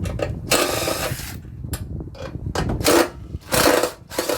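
Scraping and clicking of parts as a piece is pulled off a scrap floodlight, in four short bursts, the longest about a second in.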